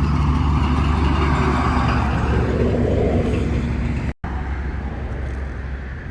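An engine running steadily. The sound drops out for an instant about four seconds in, then goes on as a rougher, noisier rumble.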